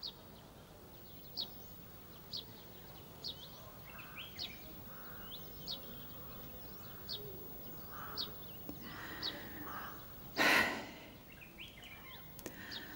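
Faint small birds chirping, short high chirps about once a second. About ten seconds in comes a loud sigh.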